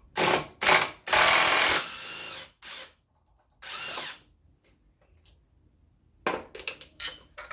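A power tool, most likely an impact wrench, undoing the scooter's variator nut: two short bursts, then a longer run of about a second and a half and one more short burst. Metal parts clink near the end.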